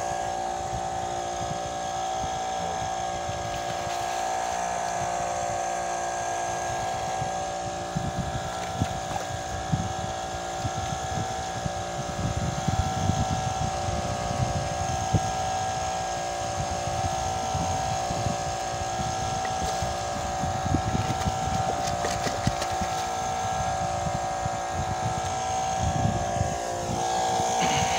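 Boat engine running at a steady speed, its pitch unchanging, with wind buffeting the microphone.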